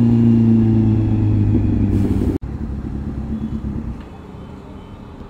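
Kawasaki inline-four motorcycle engine running steadily under the rider, its note sagging a little as the bike eases off. About halfway through, a sudden cut drops it to a quieter low engine hum, which fades into softer street background near the end.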